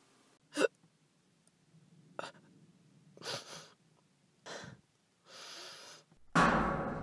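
A frightened young woman's short, sharp gasps and shaky breaths, several spread over a few seconds. Near the end comes a loud, deep boom that fades away slowly.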